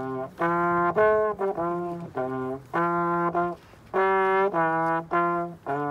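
Solo trombone playing a melody of separate held notes, with a short pause about three and a half seconds in.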